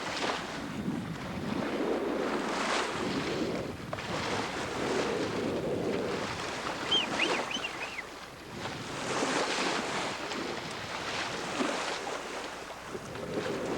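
Sea water rushing and splashing along a sailboat's hull and bow wave as it sails, swelling and easing every few seconds, with wind buffeting the microphone.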